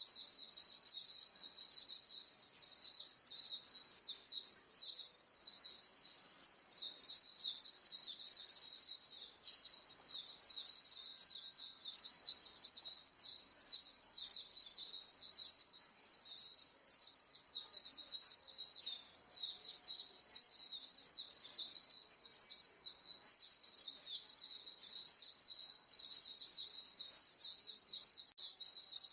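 A flock of white-eyes calling to one another: a dense, unbroken chorus of rapid, high, thin chirps, many birds overlapping with no pauses.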